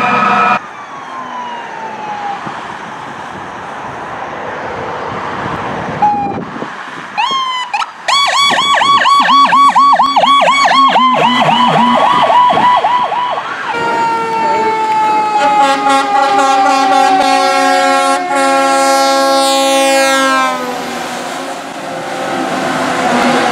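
Emergency vehicle sirens passing close by in a run of short cuts. A fast up-and-down yelp siren sounds from about 8 to 13 seconds in. A fire engine's siren follows with a rich tone that slowly falls in pitch, and it cuts off near the end.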